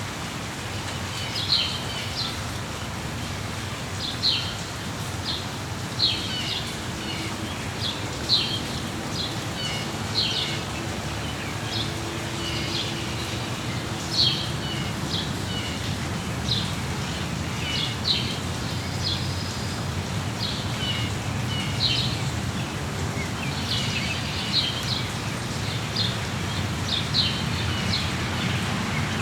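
Small birds chirping with short, high calls every second or so, over the steady patter of rain.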